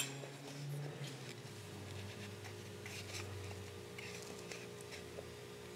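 Faint handling of a metal doweling jig against a wooden board: a sharp click at the start, then scattered soft taps and rubs as it is lined up, over a steady low hum.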